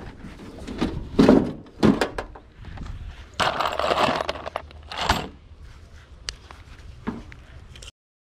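Screws rattling in a plastic tub as hands rummage through it, amid several sharp knocks of tools and boards being handled. The sound cuts off suddenly near the end.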